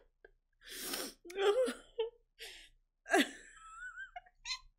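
A woman laughing hard, mostly in breathy gasps for air, with short voiced bursts and a few high squeaks near the end.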